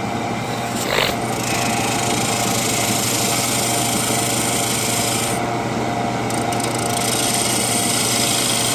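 Wood lathe running with a turning tool scraping into the spinning wooden club to cut a grip groove: a steady scraping hiss over the motor's hum. The highest part of the hiss eases off for a moment about halfway through.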